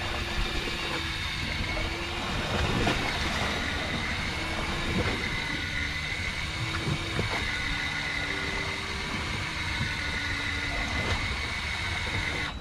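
Yamaha outboard motor idling steadily, with a thin steady whine over it and a few short knocks.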